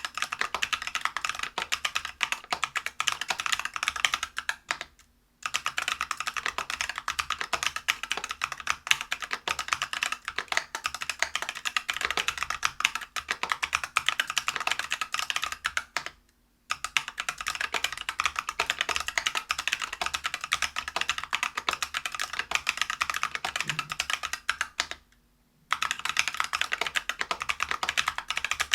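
Fast continuous typing on a Whale 75 mechanical keyboard with stock, unlubed Neapolitan Ice Cream tactile switches (63.5 g), a brass plate and Geekark Bow PBT keycaps. It breaks off three times briefly, for under a second each.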